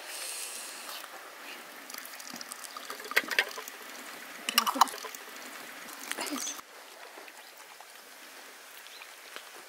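Liquid trickling from a brass samovar's tap into a glass jar, followed by sharp clinks and knocks of glass jars being handled, the loudest about three and five seconds in.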